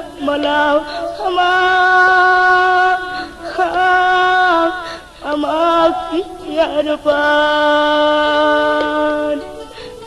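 Old Sumatran folk or pop recording: a solo melody line holding long steady notes, each a second or two long, joined by quick ornamented turns, over a quiet accompaniment.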